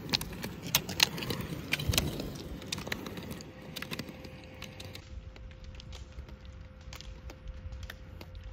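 Roller skis rolling on asphalt, with the sharp clicks of ski pole tips striking the pavement as a group of skiers pushes past close by. The clicks are dense for the first few seconds, then thin out, leaving a steady low rolling noise.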